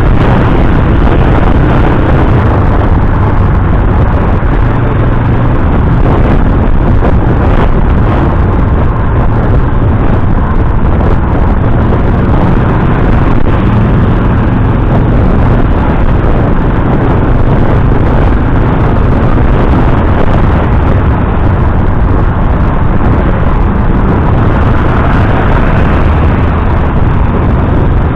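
Motorcycle engine running steadily while riding at speed, heard from the rider's seat, with constant wind and road noise over it.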